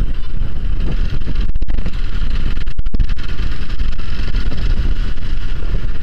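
Steady riding noise of a Hero XPulse 200 motorcycle on the move, picked up by a lavalier mic on the rider: a low rumble of engine and wind, with no let-up.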